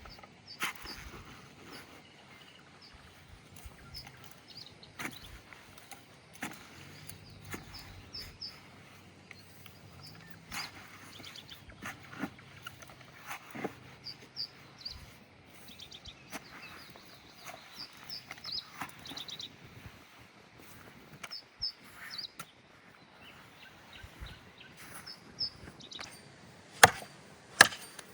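Birds chirping faintly in short groups over scattered light clicks and snaps. Near the end come two sharp chopping strikes into wood.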